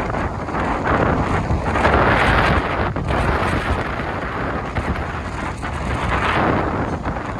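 Storm wind buffeting the microphone in a steady rush, gusting louder about a second in and again around six seconds.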